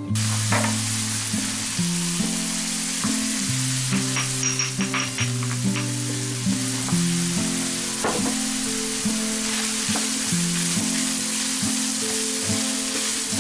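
Minced pork sizzling steadily as it fries in a pan, with a wooden spatula stirring it and a few clicks against the pan. Background music with stepping notes plays underneath.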